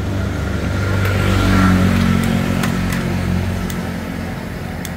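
A motor vehicle's engine passes close by, its low hum swelling to its loudest a second and a half to two seconds in and then fading. A few light metal clinks of cooking utensils sound over it.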